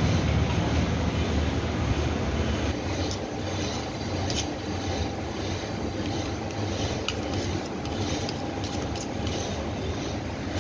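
Horizontal milling machine running with a steady low mechanical rumble, louder over the first two seconds or so. Light clicks and taps are scattered over it from about three seconds in.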